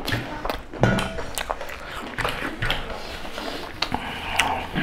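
Close-up eating sounds of chicken curry and rice eaten by hand: chewing and biting, with a string of short wet clicks and smacks.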